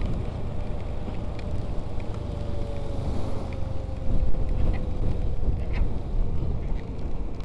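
Royal Enfield Scram 411's single-cylinder engine running steadily as the bike rides along a wet road, with tyre hiss and wind noise over it.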